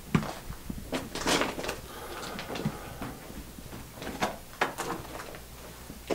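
Footsteps crunching and knocking on loose rock: a run of irregular short scrapes and thuds, the sharpest about a second in and again past four seconds, with a hollow small-space ring.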